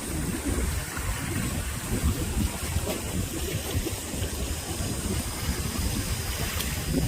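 Steady water noise over a low rumble, with a few faint ticks.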